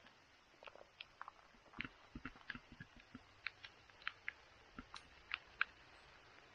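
Light rain: scattered raindrops tapping, faint sharp ticks at irregular intervals, about three a second.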